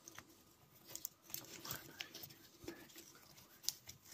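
Faint rustling of a canvas webbing strap being fed through a metal buckle, with a few small scattered clicks of the buckle.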